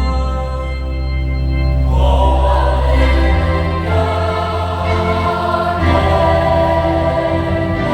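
Choir singing a hymn over held instrumental chords. The choir comes in about two seconds in.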